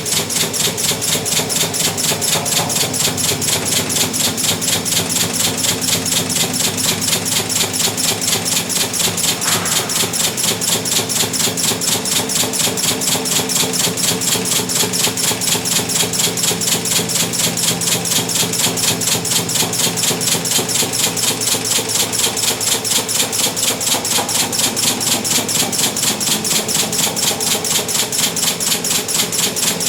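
Kocevar serial resistance spot welding machine welding a stainless steel sink into a countertop: an even, rapid train of weld pulses clicking several times a second, over a steady machine hum.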